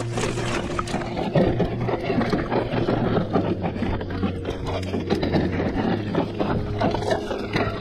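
Mountain bike rolling fast down a dry, rocky dirt trail: tyres crunching over loose soil and stones, with a constant clatter of small knocks and rattles from the bike as it is shaken over rocks.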